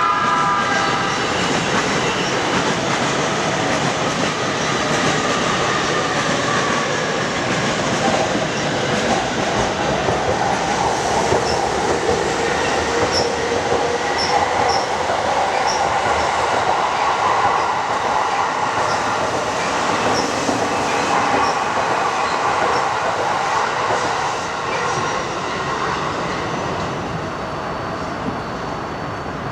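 Electric commuter trains running on elevated tracks: a steady loud din of wheels on rail, with motor whines that glide up and down in pitch. Near the middle there are a few brief high squeaks, and the noise eases off toward the end.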